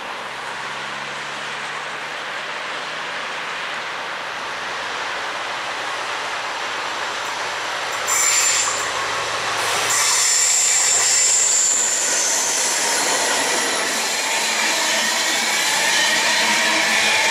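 A Class 218 diesel-hydraulic locomotive hauling passenger coaches approaches with a low engine drone, grows louder and passes close by about eight seconds in. Its coaches then roll past with a high wheel squeal on the curve.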